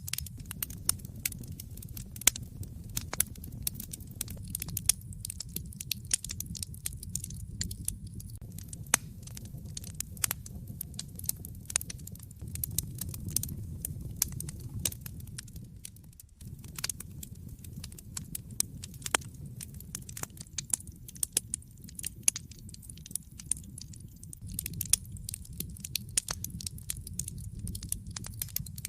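Wood fire burning in a fireplace: dense, irregular sharp crackles and pops over a steady low rumble of the flames. The sound dips for an instant about halfway through.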